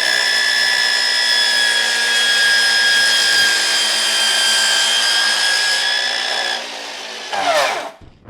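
Ryobi 36V cordless miter saw running at full speed with a steady high whine while the blade cuts wood. Near the end the trigger is let go and the blade is braked to a stop, the whine falling quickly.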